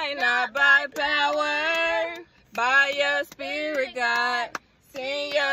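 A woman singing a slow worship chorus in long held phrases, broken by two short pauses for breath.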